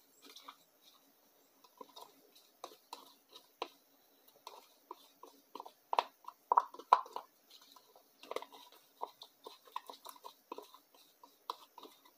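A metal spoon stirring a thick paste of sawdust and white wood glue in a small tin can: irregular clicks and wet scrapes of the spoon against the can, loudest about six to seven seconds in.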